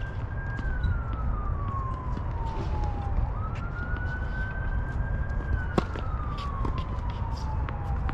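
A siren wailing: a single tone that jumps up quickly, holds, then slides slowly down before jumping up again, about once every five seconds. A sharp knock sounds once, near the end, above a steady low rumble.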